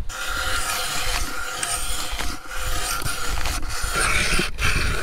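Ice auger drilling a hole through lake ice: a steady motor whine over the grinding of the blades, starting at once and cutting off just at the end.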